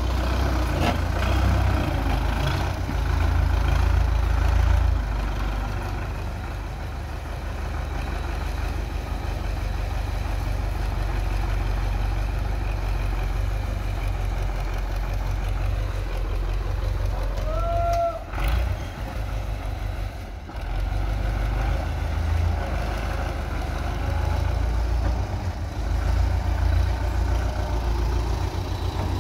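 Farm tractor's diesel engine running with a steady deep rumble under load as it drags a rear-mounted box blade through loose soil, grading a dirt road.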